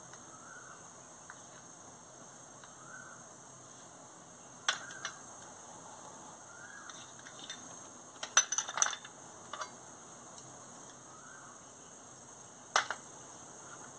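Steel spoon clinking and tapping against a small steel cup as chilli powder is knocked out onto a steel plate: one clink about five seconds in, a quick run of taps a little past the middle, and one more near the end. Under it, a steady high-pitched insect chirring.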